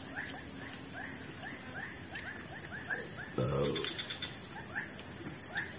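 Steady high buzzing of insects such as cicadas or crickets, with short chirps from a bird repeating a few times a second. A brief voice sounds about three and a half seconds in.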